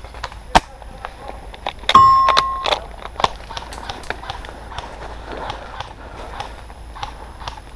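Scoped airsoft rifle firing a single sharp crack about half a second in. About two seconds in comes a louder knock with a brief bell-like metallic ring, then irregular footsteps and rustling through undergrowth.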